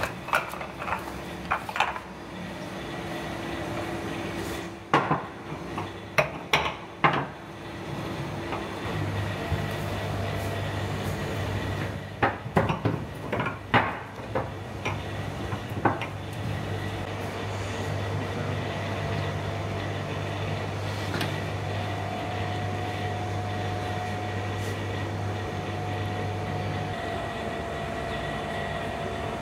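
Heavy stone dizi pots knocking against a steel counter and each other as they are picked up and set down in rows, in several quick clusters of knocks. A steady low machine hum runs under most of it.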